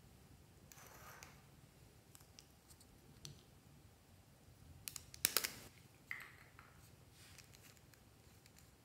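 Plastic lipstick tubes handled and uncapped, with a quick cluster of sharp plastic clicks about five seconds in and another click a second later as the caps come off, amid soft rustling.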